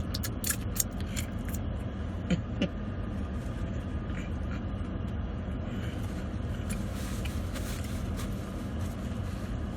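Chewing and a few sharp mouth clicks while eating a sandwich, over a steady low rumble.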